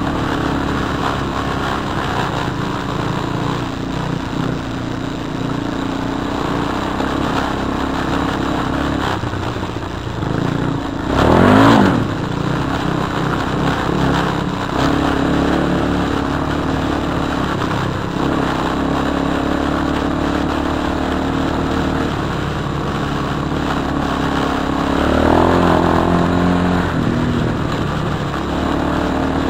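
Single-cylinder four-stroke ATV engine running on a dirt trail ride. It revs up sharply about eleven seconds in, the loudest moment, and rises again more briefly later on.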